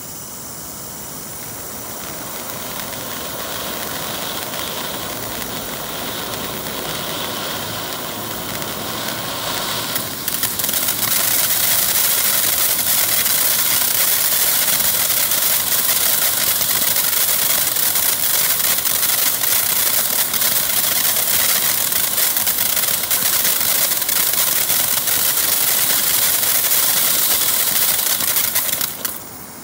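Black Cat Lost Temple firework fountain spraying sparks with a continuous hiss, building over the first ten seconds, getting louder about ten seconds in and holding steady, then dipping near the end.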